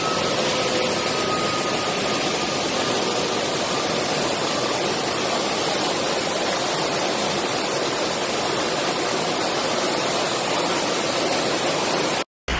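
Floodwater pouring through a dam's open spillway gates: a steady, loud rush of water. A faint high tone fades away over the first few seconds, and the sound cuts out for a moment near the end.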